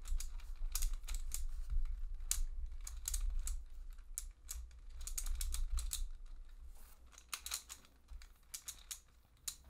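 Plastic ball-type twisty puzzle (MoleCube) being turned by hand: rapid, irregular clicking and clacking of its plastic balls as the layers are rotated, thinning out to a few clicks near the end.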